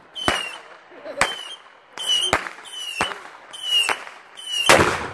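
Fireworks going off: a string of sharp bangs, about one a second, each trailed by a brief falling whistle, with a heavier, deeper boom a little before the end.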